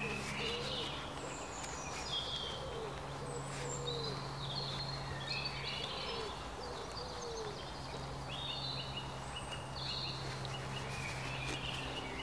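Woodland birds singing in many short phrases throughout, with groups of low hooting calls in the first half, over a steady low hum.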